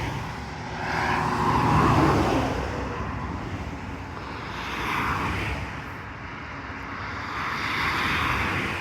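Road traffic passing: three vehicles go by, each a rush of engine and tyre noise that swells and fades, about two, five and eight seconds in.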